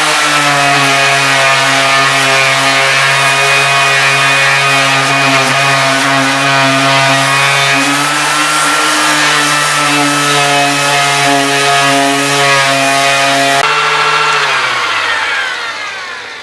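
Ryobi cordless sander running steadily at full speed, sanding paint off a wooden boat hull plank. About fourteen seconds in it is switched off and winds down, its pitch falling.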